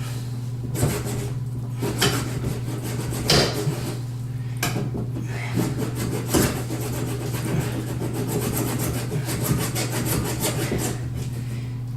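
Small handsaw cutting through a plastic sink drain trap arm in repeated back-and-forth strokes, the strokes coming faster in the last few seconds.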